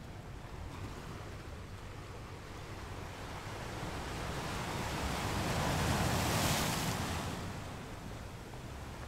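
A rushing noise that swells over a few seconds, peaks about six seconds in, and fades again.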